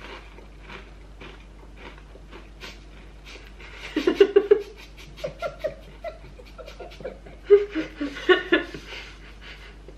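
A man and a woman laughing in giggling bursts, the first starting about four seconds in and a second run coming a few seconds later, after a stretch of faint short sniff-like sounds.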